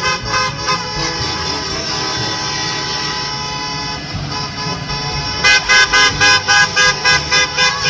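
School bus horn honking: a long steady honk, then about a second and a half of quiet, then from about five and a half seconds in a rapid string of short toots, about three or four a second, which are the loudest part.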